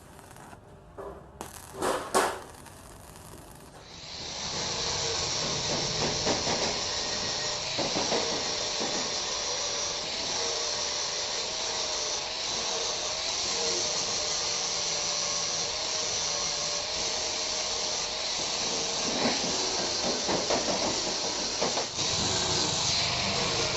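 A few sharp knocks, then from about four seconds a metalworking power tool running steadily on grill steel: a loud hiss with a faint wavering whine under it.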